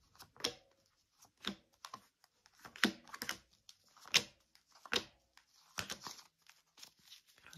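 Tarot cards being drawn from the deck and laid out on a table: a string of irregular light snaps and clicks of card stock.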